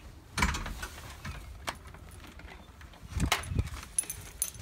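A door being opened: a sharp clunk of the latch about half a second in, then a cluster of heavier knocks and thumps around three seconds in as the door swings open, with a few light metallic clicks and jingles.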